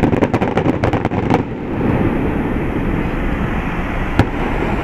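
Fireworks crackling: a fast run of sharp pops from crackling stars for about the first second and a half, then a steady low noise with a single sharp crack about four seconds in.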